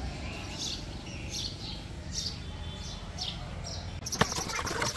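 Short, high, falling chirps coming in pairs about once a second over a steady low hum; about four seconds in, a run of sharp clicks and knocks starts.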